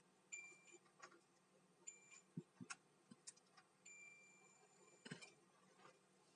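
Digital multimeter's continuity buzzer giving three faint high beeps as the probes touch points on a laptop motherboard: a short one, a shorter one, then a longer one of over a second. Each beep signals a low resistance between the probed points. Light clicks of the probe tips on the board come between the beeps.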